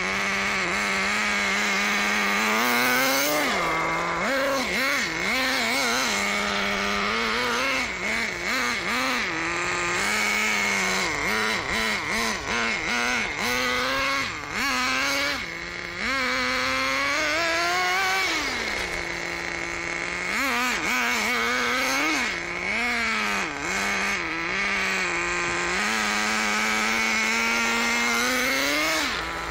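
Thunder Tiger Tomahawk BX RC buggy's motor running under throttle, its pitch rising and falling over and over as it speeds up and slows down, with a steady high whine underneath.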